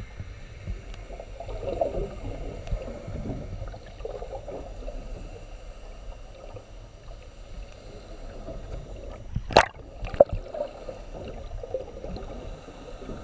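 Muffled underwater noise through a GoPro's waterproof housing, a steady low rush of moving water, with two sharp clicks about half a second apart roughly two-thirds of the way through.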